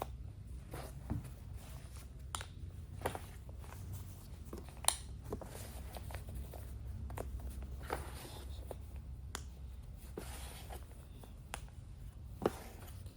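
Handling of insulated fabric window covers fitted with magnets: scattered light clicks and taps with some rustling, the sharpest click about five seconds in, over a steady low hum.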